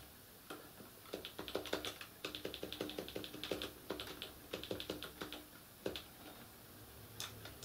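Logicool computer keyboard being typed on: quick bursts of light key clicks, with a short pause near the end.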